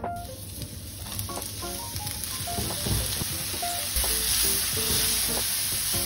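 Garlic, then sliced onion and mushrooms, sizzling in oil in a frying pan as they are stirred with a spatula; the sizzle starts soft and grows steadily louder over the first few seconds.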